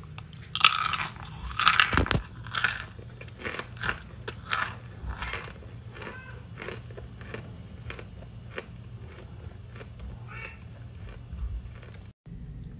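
A person bites into chunks of baked cornstarch and chews them. A few loud crunches come about a second in, then quieter, steady chewing with small crackles.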